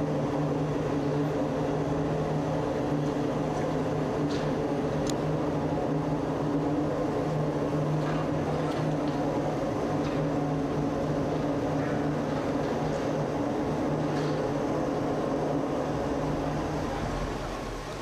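Steady machinery drone with a low, even hum. There are a couple of faint clicks about four and five seconds in, and the drone falls off near the end.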